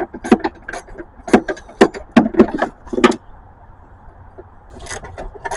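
Hand tools clicking and clinking against the metal of a car's rusty battery tie-down while it is being loosened: a run of sharp, irregular metallic clicks, pausing about three seconds in and picking up again near the end.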